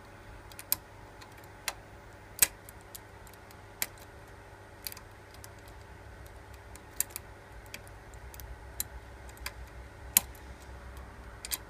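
Single-pin picking of an Asec shutter lock: the pick and tension wrench clicking against the pins in the keyway, about a dozen sharp, irregularly spaced clicks, the loudest about two and a half seconds in and again about ten seconds in.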